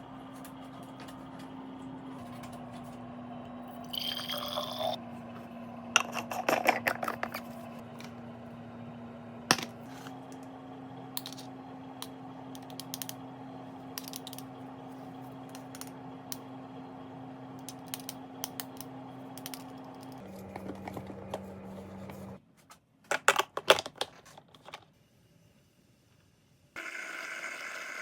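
Espresso machine humming steadily, its pitch shifting a few times and dropping lower before it stops about 22 seconds in, with clinks and clatter of cups and parts. A steady hiss starts near the end.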